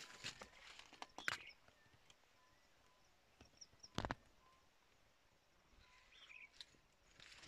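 Quiet field ambience: a few footsteps crunching through dry leaves in the first second and a half, then a single sharp knock about four seconds in. Faint, short bird chirps come and go in the background.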